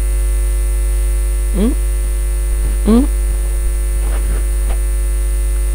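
Steady low electrical mains hum, with two short rising vocal sounds about one and a half and three seconds in.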